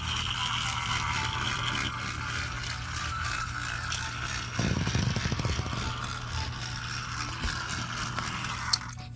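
Battery-powered motorized Thomas toy engine running on its track, its small motor whirring steadily with a faint hum. About halfway through there is a louder rattling rumble lasting about a second.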